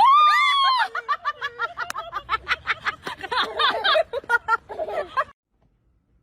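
Shrill, high-pitched laughter: a loud squeal, then a rapid run of short laughing bursts that cuts off abruptly about five seconds in.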